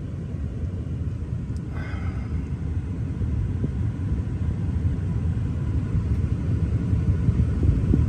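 A 1991 Lexus's engine rumbling at idle, heard from inside the cabin with the A/C running, just dropped back from 3,000 rpm. The rumble grows a little louder toward the end.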